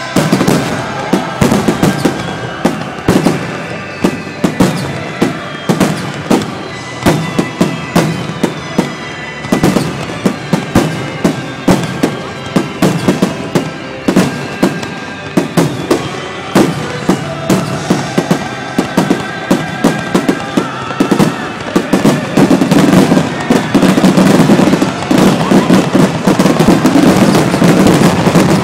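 Aerial fireworks finale: shells bursting in quick succession, several bangs a second, thickening into a louder near-continuous barrage of bursts and crackle over the last several seconds.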